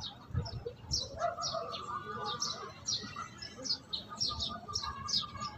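Small birds chirping: many quick, high chirps that slide downward, about two or three a second, with low thumps underneath.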